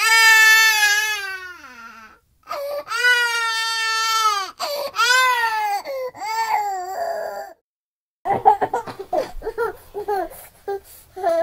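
Horror sound effect of a high voice crying: two long wailing sobs that fall in pitch, then shorter ones, and after a brief pause about three-quarters of the way through, choppy, broken whimpering sobs.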